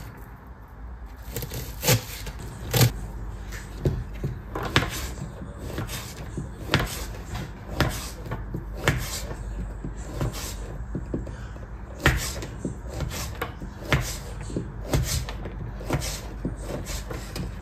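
Kitchen clatter: irregular knocks, clacks and clinks as dishes, cupboard doors and utensils are handled and put away, over a steady low hum.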